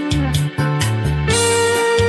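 Electric guitar playing a sustained lead melody over a cha-cha backing track, with a steady drum beat of about four clicks a second and a bass line underneath. A held note slides up near the start, and a new, higher note comes in about two-thirds of the way through.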